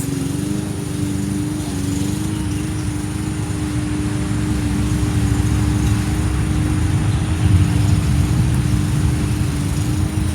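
A small engine running steadily at one constant pitch, with a low rumble beneath it.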